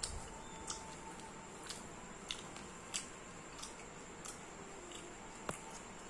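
Close-up eating sounds: short wet clicks and smacks, a little over one a second and irregular, from chewing and from fingers mixing rice on a banana leaf.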